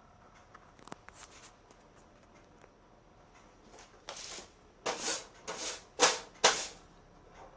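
Handling noises: a few light clicks, then a run of five short rustling scrapes, the last two sharper and loudest.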